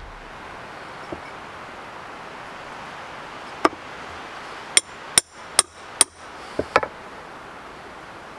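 Sharp knocks of a tool striking wood: one a few seconds in, then a quick run of about six strikes, roughly two to three a second.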